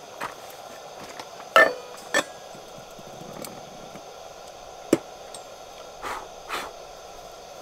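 A handful of sharp knocks and clatters at irregular intervals, the loudest about one and a half seconds in with a brief ring, over a steady faint hum.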